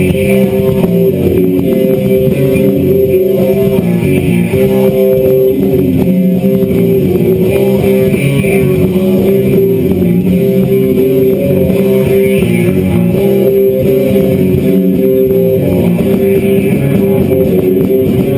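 Guitar music playing loudly and steadily.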